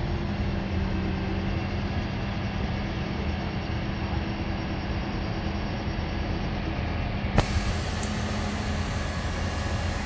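Crane truck's engine running steadily, powering the boom as it hoists a rooftop air-conditioning unit, with one sharp click about seven seconds in.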